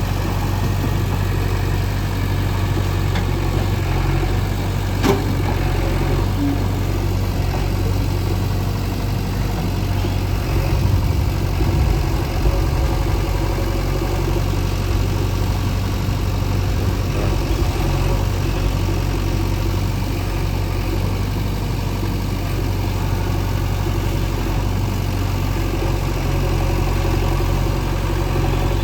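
Diesel engine of a JCB 3DX backhoe loader running steadily, with a single sharp knock about five seconds in and a little more effort around ten to thirteen seconds in.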